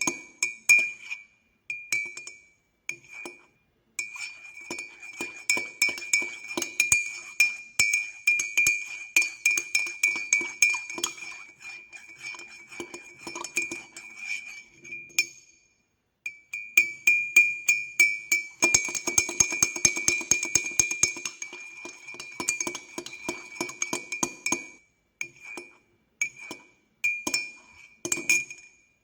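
Teaspoon stirring sugar into a cup of coffee with milk, clinking rapidly against the inside of the cup, which rings with a steady tone. The stirring runs in spells with brief pauses and breaks into a few short bursts near the end.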